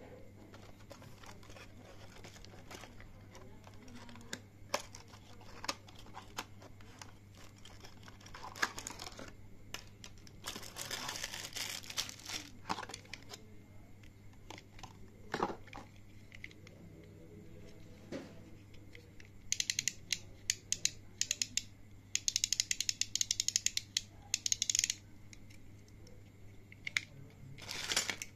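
Plastic toy packaging being handled: crinkling of a plastic bag with scattered small taps and clicks, a longer crinkling stretch in the middle and quick runs of small clicks in the second half. A faint steady hum sits underneath.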